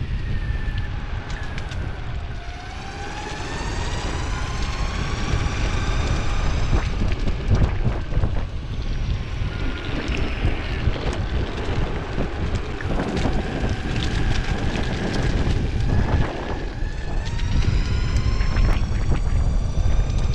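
Electric skateboard motor whine that rises in pitch as the board speeds up a couple of seconds in, drops around three-quarters of the way through and climbs again. Under it are constant wheel rumble on pavement and wind on the microphone, with scattered clicks as the wheels cross cracks and debris.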